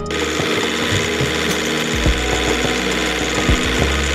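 A motor running steadily, cutting in suddenly at the start, with background music underneath.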